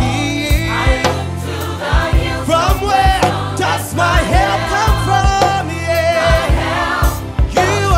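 Gospel music: a choir singing over a band with a steady bass line and a drum beat.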